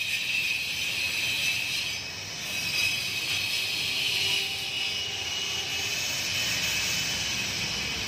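Angle grinder cutting a groove into a plastered masonry wall: a steady high whine that drifts slightly up and down in pitch as the disc is worked along the cut.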